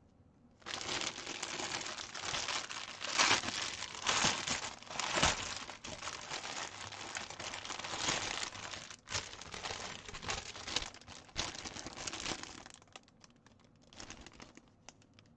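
Packaging of a stamped cross stitch kit crinkling as it is handled, continuous for about twelve seconds, then thinning to a few scattered crackles near the end.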